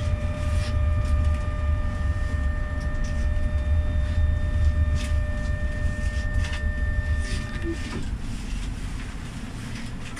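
GEC-Alsthom TFS tram running on street track, heard from the driver's cab: a low rumble of wheels on rail with occasional clicks, over a steady whine from the electric traction equipment. The whine cuts off about eight seconds in, and the sound then gets a little quieter.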